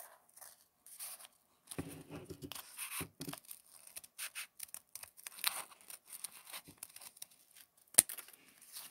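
Scissors cutting through several layers of folded paper: a run of short snips and paper rustles, with one sharp click of the blades about eight seconds in.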